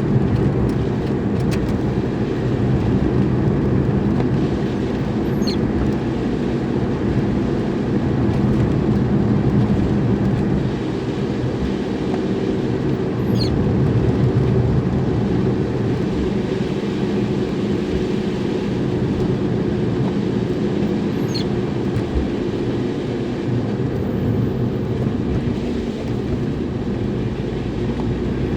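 Steady car engine and road noise heard from inside a moving car, with a faint, short high chirp repeating about every eight seconds.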